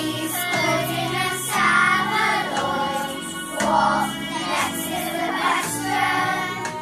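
A group of children singing together to musical accompaniment.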